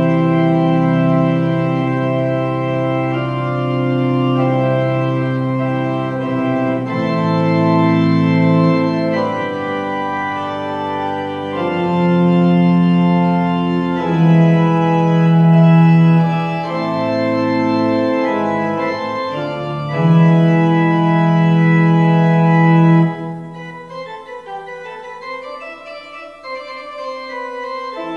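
Organ music: slow, held chords that change every second or two, dropping to a softer, thinner passage near the end.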